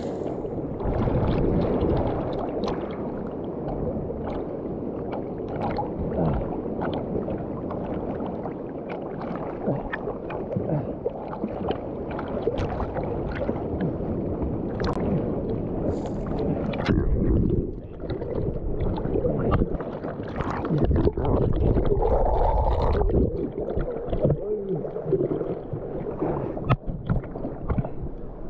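Choppy sea water sloshing, splashing and gurgling right against a waterproof camera held at the surface by a swimmer.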